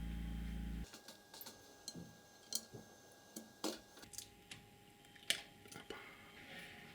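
A power tool's electric motor hums steadily and stops abruptly just under a second in. It is followed by scattered light clicks and taps, as of small metal parts being handled.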